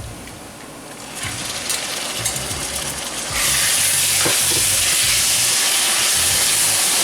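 Chopped onions, ginger and garlic frying in hot coconut oil in a pan, with a spoon stirring. About three and a half seconds in the sizzle suddenly jumps much louder and stays loud as yogurt-marinated chicken pieces go into the hot oil.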